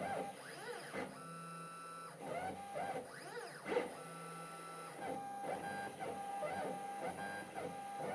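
Stepper motors of a CNC-Step High-Z S-720/T CNC engraver whining in quick rising and falling tones as the axes drive a diamond-tipped graver across a brass plate, tracing small lettering. Twice the glides stop and steady tones hold for about a second.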